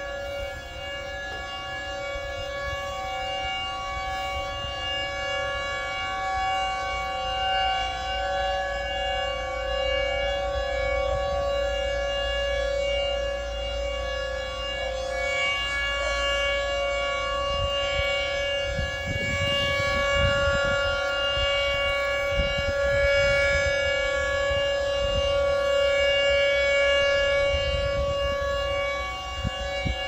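Hor Siro-drone outdoor warning siren sounding a steady tornado-siren alert tone of several pitches at once, its loudness slowly swelling and easing.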